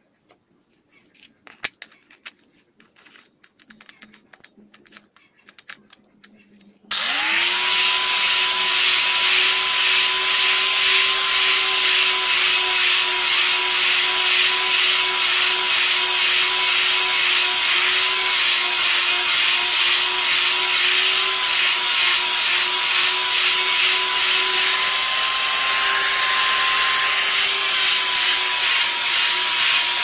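Small electric palm sander switched on about seven seconds in and running steadily against wood, its motor pitch wavering slightly as it is worked over the surface. Before it starts there are only light handling clicks and knocks.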